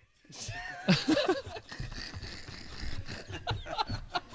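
Breathy fits of laughter, starting about half a second in after a brief silence and going on in short gasping bursts with a few wavering high-pitched squeals.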